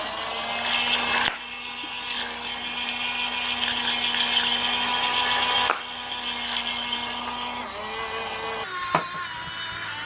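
Small electric motor of a battery-operated mini washing machine running, a steady whine with a few fixed tones as its tub spins. About nine seconds in it gives way to background music.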